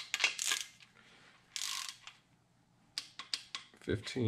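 Torque wrench ratchet clicking as it is swung back and forth to run down an LS3 main-cap bolt, with a short rasp of faster ratcheting about one and a half seconds in.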